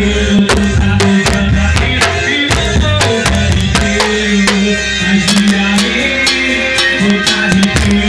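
A band playing loud music with a drum kit and bass, with sharp drum hits over a steady bass line.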